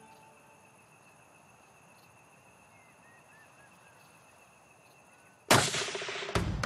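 A single rifle shot about five and a half seconds in: a sudden loud crack that dies away over most of a second. Before it, quiet outdoor ambience with a few faint bird chirps; drum hits of music start just after the shot.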